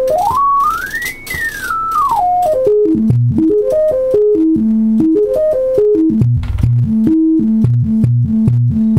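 Single pure test tone from a signal generator, played through a Buttkicker BKA1000-4A amplifier during its frequency test. The tone steps up in pitch to a high peak about a second in, then steps back down. It then hops between low notes, from about six seconds swinging regularly between two low pitches an octave apart.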